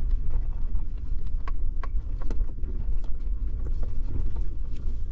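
Maruti Suzuki Jimny driving over a rough track: a steady low rumble of engine and tyres, with scattered sharp knocks and clicks, a few of them louder around the middle.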